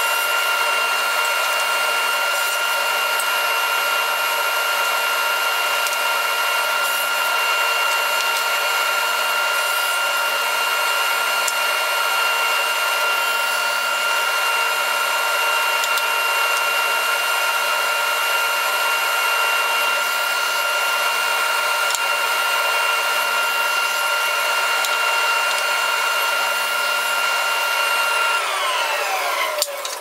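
Table saw running steadily with a high, even whine. About 28 seconds in it is switched off, and the whine falls in pitch as the blade winds down.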